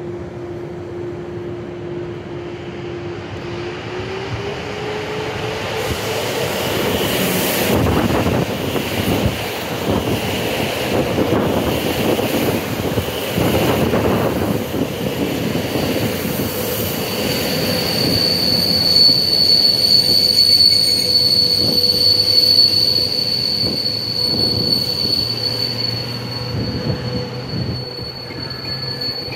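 PKP Intercity locomotive-hauled passenger train passing close by. A hum rises in pitch a few seconds in, then the wheels rattle and clatter over the track as the coaches go by. From about halfway through, a steady high-pitched wheel squeal sounds.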